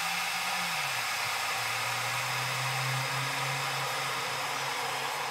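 One-cup hot water dispenser running and dispensing boiling water into a mug: a steady hiss over a low pump hum that drops in pitch over the first second or so, then holds steady.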